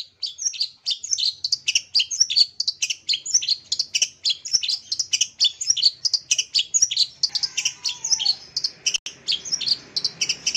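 Long-tailed shrike (cendet) singing a fast, unbroken chatter of short, high chirps and trills.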